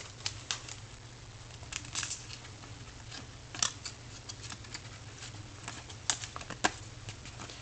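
Trading card pack and cards being handled: scattered light clicks and rustles of card stock and wrapper, spaced irregularly, over a steady low hum.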